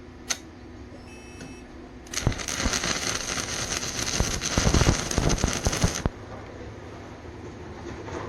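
Stick-welding arc burning an E6011 rod on rusty steel pipe: a loud, dense crackle with sharp snaps, struck about two seconds in and held for about four seconds as a tack weld, then broken off abruptly.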